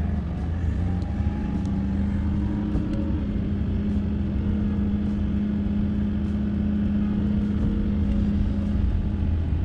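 A vehicle driving at a steady speed: an even engine and road rumble with a steady hum.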